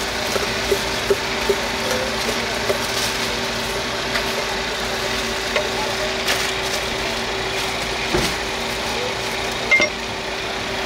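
Steady hum of an idling engine, with a level drone and a bed of noise. Over it come sharp knocks, about two or three a second for the first couple of seconds, then a few scattered clinks, the loudest near the end.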